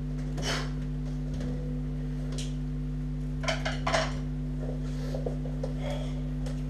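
Steady electrical hum from a band's amplified gear left switched on, with a few scattered clicks and clatters of handling noise; the loudest is a short cluster of knocks about halfway through.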